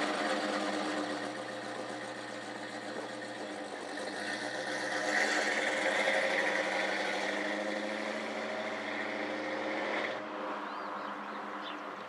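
A vehicle engine running steadily after starting, growing louder in the middle, then cutting off suddenly about ten seconds in.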